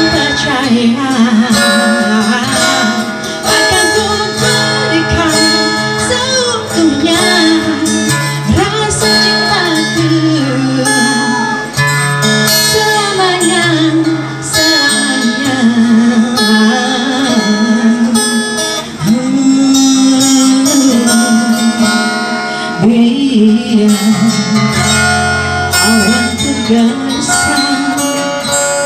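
Live acoustic guitar accompanying a woman singing a slow song into a microphone, her melody gliding and wavering over the strummed chords.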